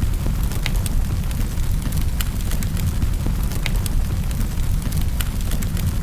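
Wood fire crackling in a fireplace: a steady low rumble of flames with irregular sharp pops and snaps, a few each second.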